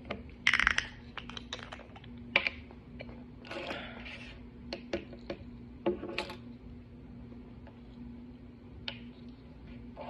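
Young woman hiccuping: short, sharp hiccups every couple of seconds, with softer clicks between them.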